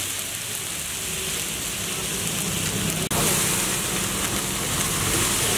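Steady loud sizzling of liquid and batter on a large hot flat griddle, a dense crackling hiss, briefly breaking off about three seconds in.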